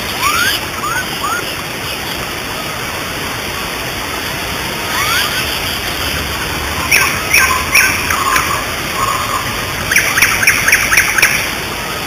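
Steady rush of a waterfall with birds calling over it: a few short rising chirps near the start and again around five seconds in, then quick runs of repeated high notes about seven and ten seconds in, which are the loudest sounds.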